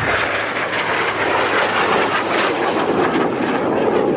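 An aircraft flying overhead, its engine noise loud and steady.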